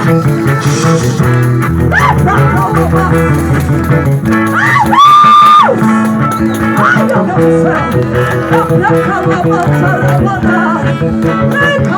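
Upbeat music: singing over guitar and a shaken rattle, with one long held high note about five seconds in.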